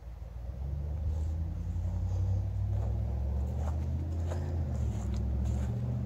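Low engine rumble of a passing motor vehicle, swelling about a second in, holding steady, then easing off near the end. A few faint crunching clicks of footsteps on the forest floor are mixed in.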